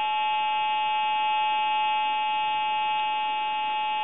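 Steady buzzing tone with many overtones, heard over a telephone line, coming from a fault in a time-and-temperature recording service's equipment. It breaks into the recorded announcement between the temperature and the weather report.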